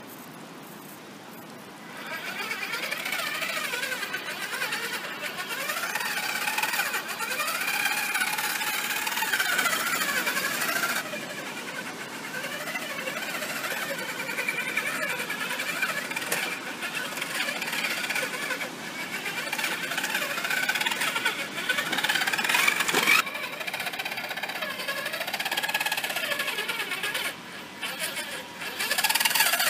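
Electric drive motor and gears of a scale R/C crawler truck whining, the pitch rising and falling over and over as the throttle changes while it crawls over roots and dirt. The whine starts about two seconds in.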